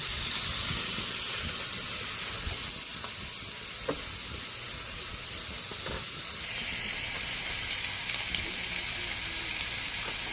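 Sukiyaki cooking in a pan, a steady sizzling hiss that grows slightly fuller about two-thirds of the way through, with a few faint clicks.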